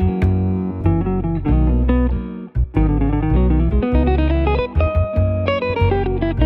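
Background music: guitar-led track with quick plucked notes over a heavy bass line.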